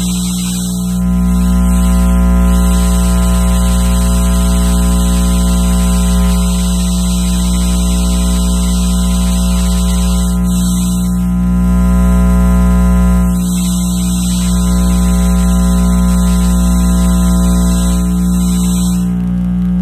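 Electromagnetic interference from an electronic device, picked up by a radio-frequency interference probe: a dense electrical hum of many steady tones over a strong low buzz, with a high hiss on top. The texture shifts at several points, and the high hiss drops away near the end.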